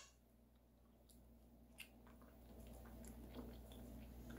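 Near silence, then from about halfway faint, irregular wet clicks of a Nigerian dwarf goat kid mouthing and chewing on a bottle's rubber nipple instead of sucking from it.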